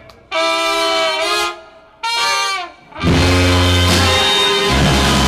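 Brass band playing: two held horn notes with a brief break between them, then about three seconds in the full band comes back in with deep sousaphone bass notes under the horns.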